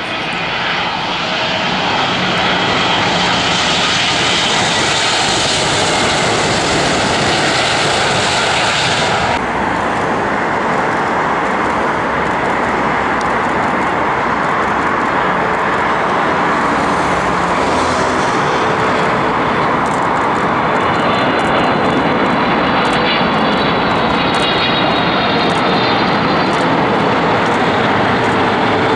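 Boeing 777 jet airliners on landing approach, their twin engines running loud and steady. The sound changes suddenly about nine seconds in as it cuts to another aircraft, and a high whine from the engine fans comes in during the second half.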